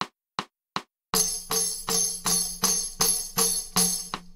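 Sharp, evenly spaced ticks on the beat, then from about a second in a tambourine struck on each beat, about two or three strikes a second, its jingles ringing over a steady low tone.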